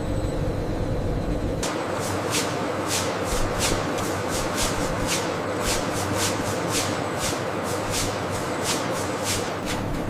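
Processing-plant machinery running: a steady hum that changes abruptly about one and a half seconds in to a noisier clatter with irregular sharp ticks, about three or four a second.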